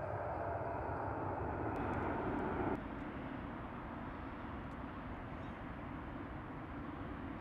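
Jet engine noise from an Airbus A330-300 climbing out just after takeoff: a steady, deep rumble as it passes overhead and heads away. The sound drops suddenly in loudness and loses its brighter, higher part about three seconds in.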